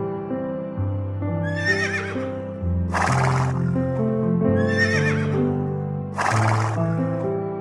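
Background music with an animal calling twice: each time a wavering high call is followed by a short harsh, breathy blast.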